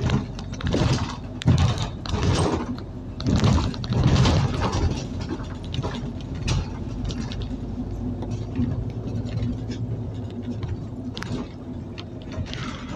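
Scania OmniCity city bus on the move, heard from inside the passenger cabin: a steady engine hum with several loud rushes of noise in the first five seconds.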